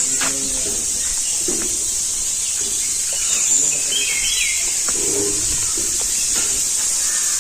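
Steady high-pitched insect drone with short bird chirps about three and a half seconds in, and faint voices in the background.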